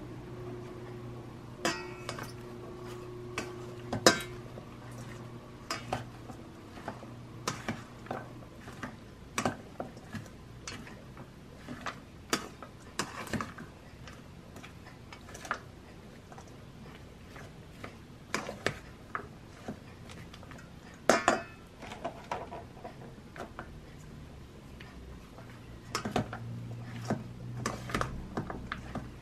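White plastic spatula tossing sliced mushrooms, red onion and cucumber in a stainless steel bowl, with irregular clicks and knocks of the spatula against the metal. A low steady hum sits underneath at the start and again near the end.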